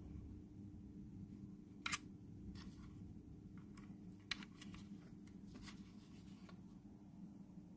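Small plastic clicks and taps, about half a dozen, the loudest about two seconds in, as a AA battery is fitted into the battery compartment of a Logitech Lift vertical mouse. A faint steady low hum runs underneath.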